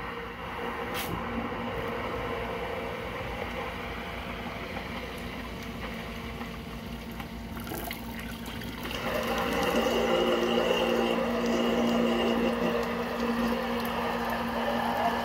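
A 1/4 HP submersible utility pump running in a tub of water, pushing it up through the outboard's cooling water jacket, with a steady hum and a click about a second in. About nine seconds in it grows louder, with more rushing water.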